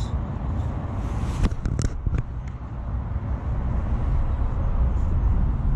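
Steady low rumble of wind buffeting the microphone, with a handful of sharp clicks about one and a half to two seconds in from a spinning reel being handled.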